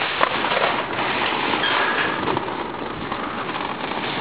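Metal shopping cart rolling across an asphalt parking lot, its wheels and wire basket rattling steadily.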